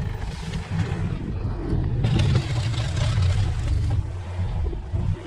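Engine of an earth-moving machine running under load while pushing dirt, a steady low rumble that grows louder and rougher about two seconds in before easing.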